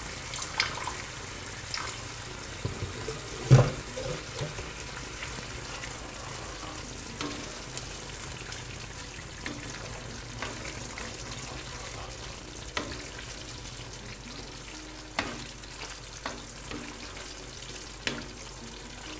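Thick tomato masala gravy sizzling steadily in a pan as a spatula stirs it, with scattered scrapes and knocks of the spatula against the pan; the loudest knock comes about three and a half seconds in.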